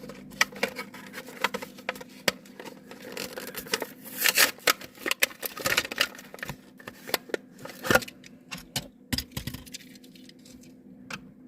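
Matchbox blister pack being opened by hand: plastic bubble and card crackling, clicking and tearing in quick irregular bursts, with a couple of louder snaps, the loudest about eight seconds in.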